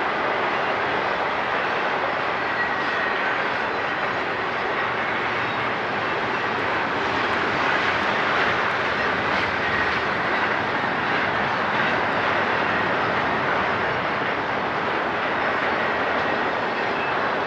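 Freight train rolling past: a steady, unbroken rush of wheels on rail.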